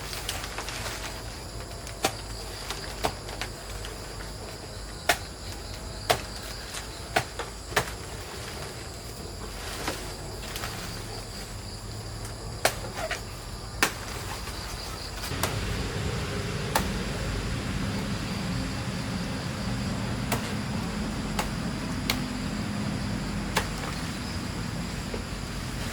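Steady high-pitched insect drone, with a dozen sharp knocks or clicks scattered through the first half. About halfway through, a low steady hum comes in and keeps going.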